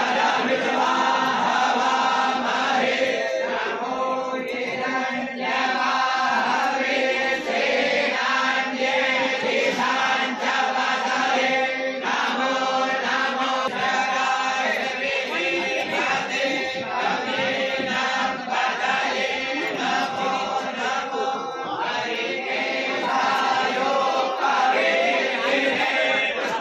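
Voices chanting Hindu mantras in a continuous recitation.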